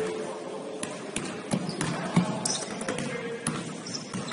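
Basketball bouncing on a gym floor during play, a string of irregular sharp thuds, with voices in the background.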